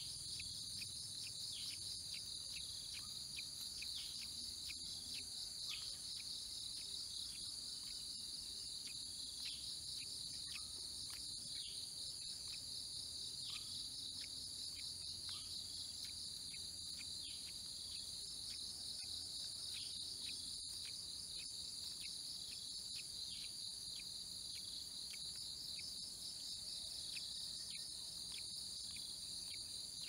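Steady, high-pitched chorus of insects, with many brief faint chirps scattered through it.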